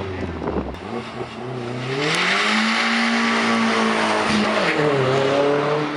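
MK4 Volkswagen Jetta's turbocharged 1.8-litre four-cylinder engine revving through its aftermarket exhaust. The pitch climbs about a second in, holds for a couple of seconds, drops, then climbs again near the end.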